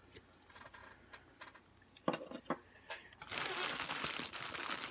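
Light clicks and taps of small jewelry being handled and set down. Then, about three seconds in, a bag starts rustling and crinkling steadily as it is rummaged through.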